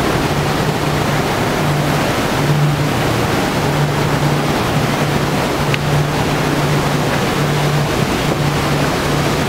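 Water rushing and churning in a filling canal lock chamber as it surges up through the floor, a steady loud rush. A low hum comes and goes underneath it.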